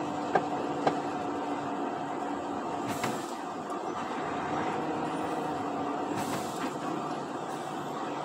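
Truck running on the road, heard from the cab: a steady engine and road drone with two sharp clicks in the first second and short hisses of air about three and six seconds in.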